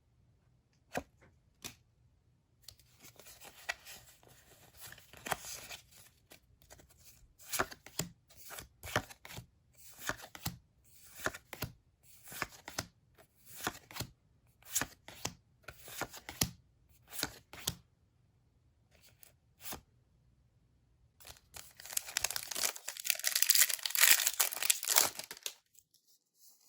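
Pokémon card packaging being torn open and handled by hand: scattered short rustles and snaps, then a longer, louder stretch of tearing near the end.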